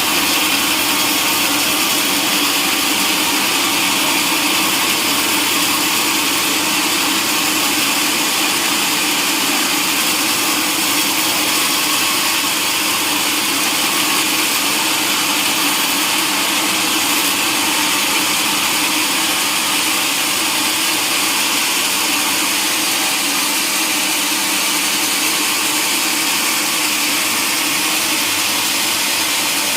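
Sawmill saw cutting through a long log, running steadily and evenly with no breaks.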